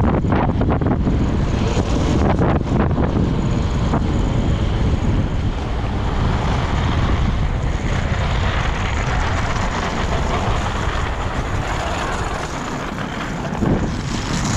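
Steady wind buffeting the microphone over the rumble of roller-skate wheels rolling on pavement, with a few brief knocks in the first few seconds.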